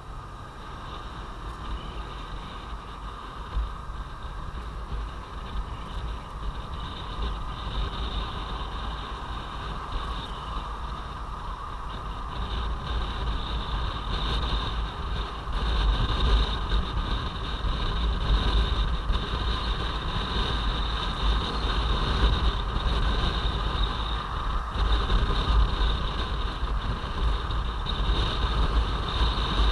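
Kawasaki Versys-X 250 parallel-twin motorcycle riding in traffic, picked up by a helmet-mounted camera: steady engine noise mixed with wind rushing over the microphone. It grows louder about halfway through as the bike picks up speed.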